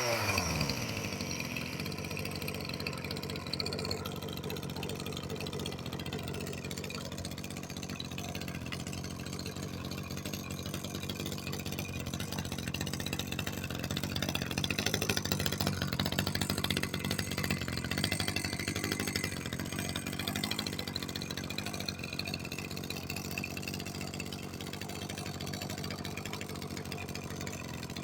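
Kioritz SRE2720 brush cutter's small two-stroke engine falling from high revs to idle at the start, then idling steadily, a little louder for a few seconds about halfway through. The seller lists this engine as having an abnormal hissing noise.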